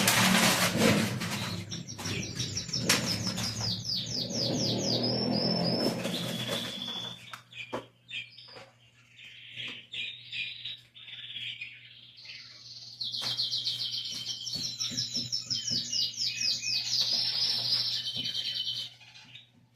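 Songbirds singing: two long phrases of rapid, high repeated chirps, the first about two seconds in and the second from about thirteen seconds in. Clattering and rustling from household cleaning run under the first seven seconds, with a faint steady low hum throughout.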